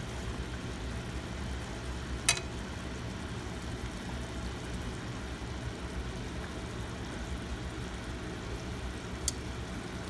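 Cooking in a wok: a steady low hum with light stirring, and two sharp clicks of metal tongs knocking on the pan, one about two seconds in and one near the end.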